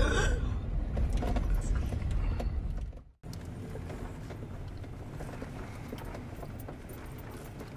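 Jeep Wrangler's engine and tyres heard from inside the cabin on a bumpy sandy trail: a low rumble with small knocks and rattles. The sound drops out briefly about three seconds in and returns quieter and steadier.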